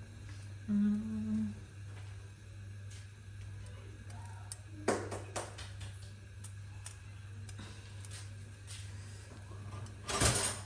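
Steady low hum in a small kitchen, with a short low tone about a second in, a faint knock about five seconds in, and a brief rustling burst near the end.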